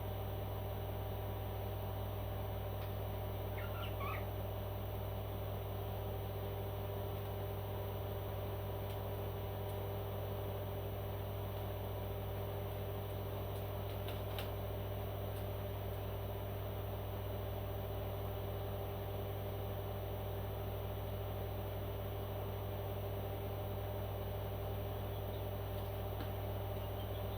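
Steady electrical hum with several fixed tones, like an appliance or the recording's own mains hum, at an even level throughout. A faint short chirp sounds about four seconds in, and a single click about halfway through.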